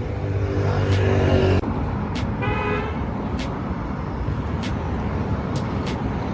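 City street traffic noise with a short car horn toot about two and a half seconds in. A steady low hum from a nearby vehicle cuts off suddenly about a second and a half in.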